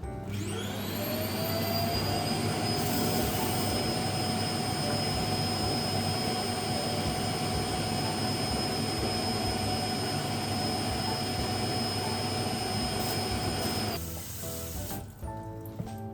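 Small electric motor spinning up with a rising whine, running steadily, then cutting off suddenly near the end.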